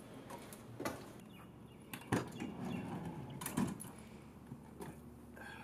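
A few sharp knocks and clicks, spaced roughly a second apart, with rustling in between; the loudest come about two seconds in and about three and a half seconds in.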